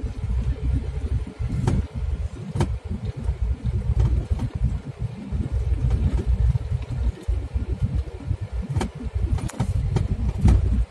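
Vehicle cabin noise while driving over rough dirt ground: a low, uneven rumble with several sharp knocks and rattles from the body jolting over bumps.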